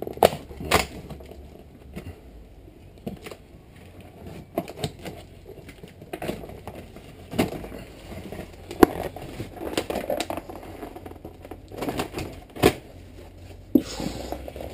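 A cardboard box being cut and pried open with blunt scissors: irregular clicks, snaps and crackling of cardboard and tape, with a few sharper snaps at the start, about two-thirds of the way through and near the end.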